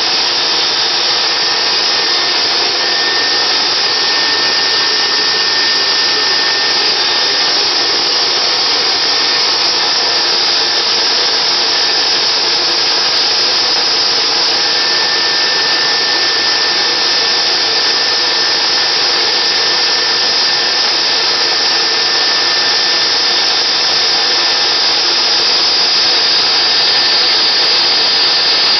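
A dog-grooming stand dryer's blower running steadily, a loud even whoosh that does not let up, while electric clippers work on the dog's coat.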